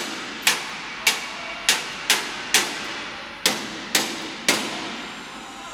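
A hammer striking a plasma-cut steel plate on the cutting table, about eight sharp blows at roughly two a second, stopping about four and a half seconds in.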